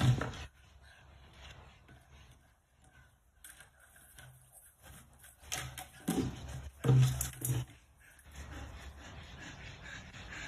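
A dog grabbing and carrying a plastic bucket, the bucket knocking and scraping, with a few louder thumps: one at the very start and a cluster about six to seven and a half seconds in.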